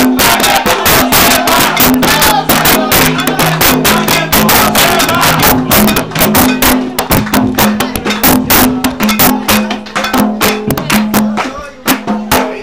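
Puerto Rican plena music: panderetas (hand frame drums) beaten in a fast, dense rhythm over a repeating low melody. The playing thins out and gets quieter near the end.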